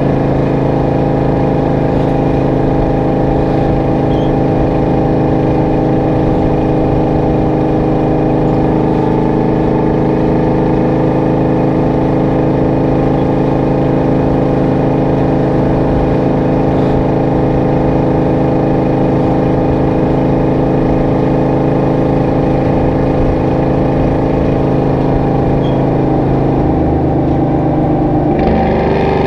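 Detroit Diesel 12V71, a two-stroke V12, running steadily at constant revs as the Kenworth W900A cruises, with its pitch dropping just before the end.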